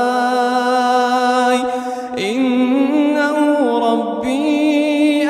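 Quran recitation: one voice chanting a long, drawn-out melodic phrase, holding notes and sliding slowly between them, with a brief break about two seconds in.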